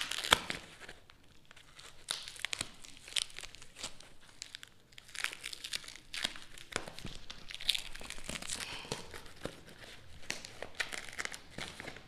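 Plastic packaging wrap, bound with tape, crinkling and tearing as it is pulled apart by hand. A run of irregular crackles and rips, the loudest just after the start.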